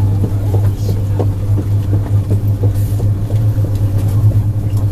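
Running noise inside a 200 series Shinkansen electric train in motion: a steady low rumble with a constant hum.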